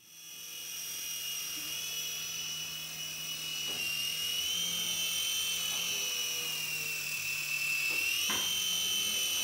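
Sky Rover Vigilante toy RC helicopter's electric motors and rotors running with a steady high-pitched whine, the pitch wavering slightly as it flies and rising briefly near the end.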